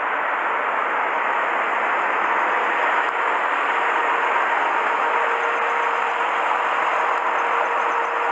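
Steady running noise of parked semi-truck machinery: an even, unbroken rush with a faint steady hum underneath.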